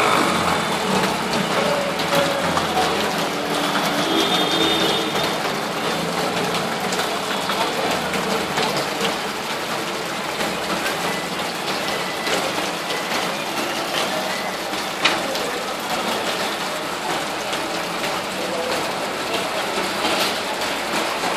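Busy street noise: running vehicle engines and a jumble of distant voices, steady throughout, with scattered clicks and knocks.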